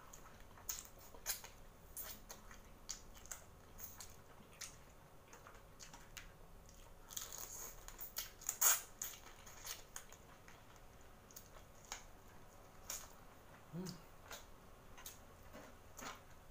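Close-miked eating of boiled seafood by hand: scattered wet mouth smacks, sucking and chewing clicks, the loudest smack about halfway through.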